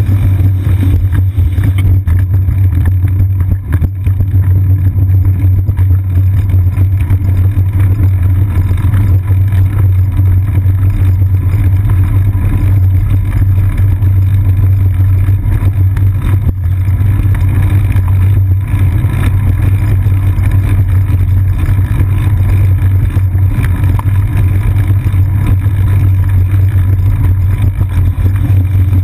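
Steady, loud low rumble of a moving bicycle picked up by a seat-post-mounted GoPro Hero 2 in its sealed housing: road vibration through the frame and wind on the housing.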